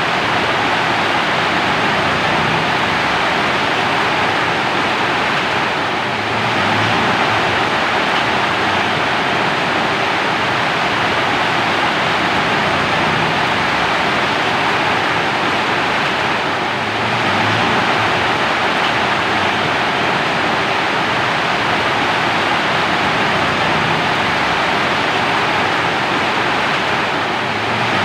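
Steady heavy rain, a dense even hiss with no single drops standing out, dipping slightly about every ten seconds.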